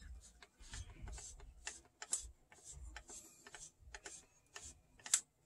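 Faint, irregular light clicks and rubbing as a paper towel wipes a plastic wheel in a cassette deck's transport mechanism, cleaning off the tar-like residue of a disintegrated rubber drive belt.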